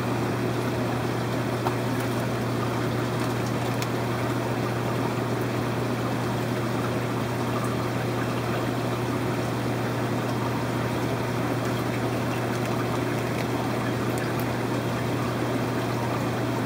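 Steady fishroom background: aquarium pumps humming with water trickling and splashing in the tanks, unchanging throughout.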